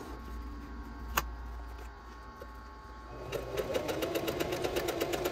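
Singer electric sewing machine starting up about three seconds in and running steadily, its needle stroking in a quick, even rhythm as it straight-stitches through layered fabric. Before it, handling of the fabric and a single sharp click about a second in.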